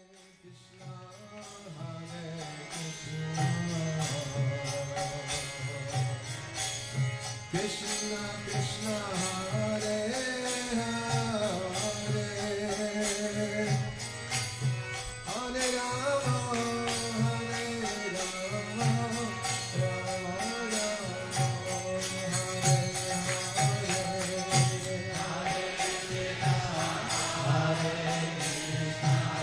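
Background devotional music: chanted singing over a rhythmic drum and jingling hand cymbals, fading in over the first few seconds.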